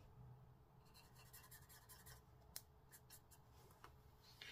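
Faint scratching of a Sharpie marker's felt tip on card, in a run of short strokes starting about a second in.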